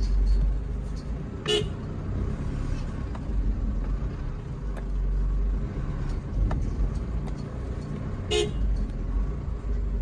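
Pickup truck's horn tooted twice in short blasts, about a second and a half in and again near the end, over the steady low rumble of the engine heard from inside the cab, as the truck noses through cattle standing in the track.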